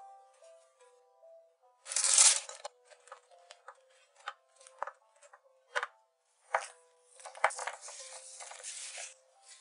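Light background music over cooking handling noises: a loud, brief scraping rush about two seconds in, scattered clicks and taps of a utensil in the pan, then a longer rustle near the end as gloved hands roll the milk-coated date sweets in milk powder.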